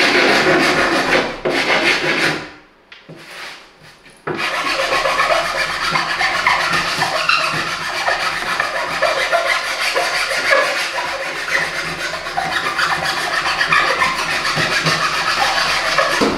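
Hand rasp scraping along the edge of a marine-plywood board in repeated strokes, roughing up the edge. The sound breaks off briefly about three seconds in, then goes on steadily.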